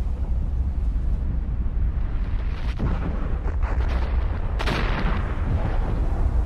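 Volcanic eruption: a continuous deep rumble with a few sharp explosive blasts in the middle, the loudest just before five seconds in.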